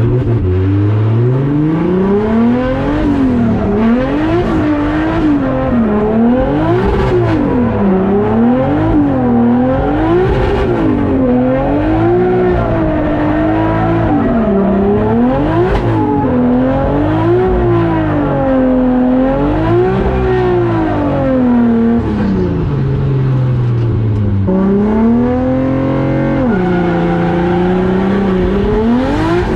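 Turbocharged 1JZ inline-six in a Nissan 240SX drift car, revved up and down over and over, about once every second or so, under hard throttle on track. Near the end the revs sag low, climb again and drop away sharply.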